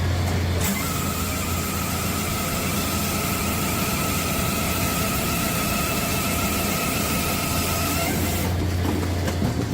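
Hydraulic wood-splitting machine running with a steady low hum, joined about a second in by a thin high whine that stops near the end.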